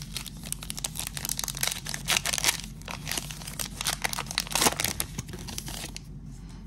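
Foil wrapper of a baseball card pack being torn open and crinkled by hand: dense crackling and rustling that dies down about six seconds in.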